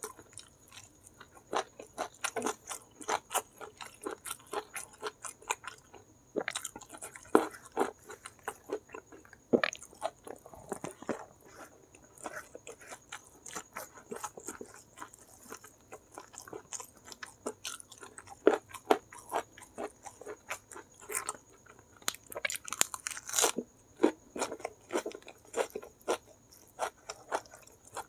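Chewing and crunching of crispy battered fried chicken smothered in chili sambal, in irregular clusters of short crunches and mouth clicks with brief pauses between.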